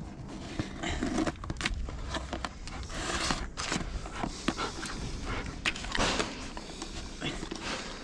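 Dried rubber roof coating being picked and peeled by hand from inside a flexible plastic bucket, with irregular crackling and scraping and many small clicks.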